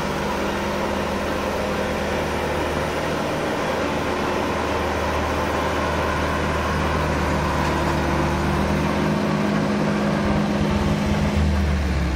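Diesel engine of an older Fendt tractor running steadily as the tractor drives over a heap of chopped grass silage, rolling it down.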